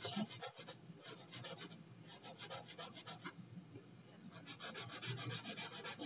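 A clove rubbed back and forth on a small wet rubbing stone with saffron and water, grinding them into a paste: quick, evenly paced rasping strokes, dropping away twice for about a second.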